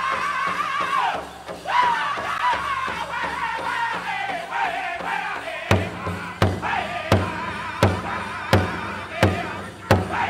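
Powwow drum group singing a chicken dance song in high, wavering voices over a big drum. About six seconds in, the drum turns to heavy, evenly spaced beats, roughly three every two seconds.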